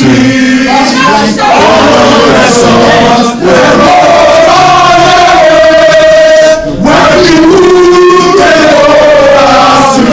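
A crowd of protesters singing together in chorus, a chant-like song in phrases with long held notes and brief breaks between them.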